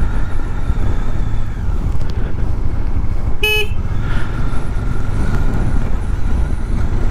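Bajaj Dominar motorcycle under way, its engine and road noise a steady low rumble. There is one short horn toot about three and a half seconds in.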